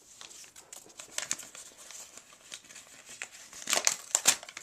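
Packaging crinkling and rustling in the hands as the mailer is searched for more contents, with scattered crackles and a louder flurry of rustles near the end.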